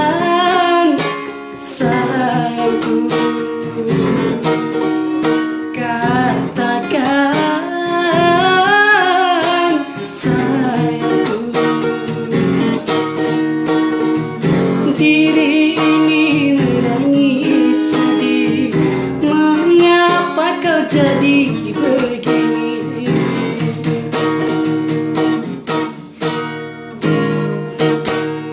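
Music: a strummed acoustic guitar accompanying a sung melody, dying away near the end.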